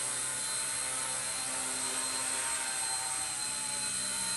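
Blade mCP X micro collective-pitch RC helicopter in flight: a steady electric whine and buzz from its motors and rotors, with small shifts in pitch.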